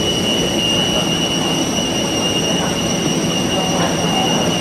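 Steady mechanical whir with a constant high-pitched whine: the air supply and machinery of a parked Boeing 747 running at its boarding door.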